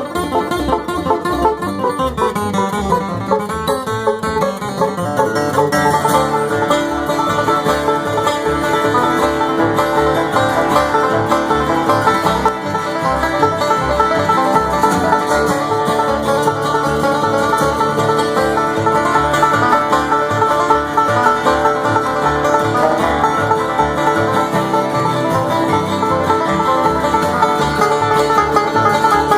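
Bluegrass band playing a fast tune, with banjo picking to the fore over guitar; the sound fills out and grows a little louder about six seconds in.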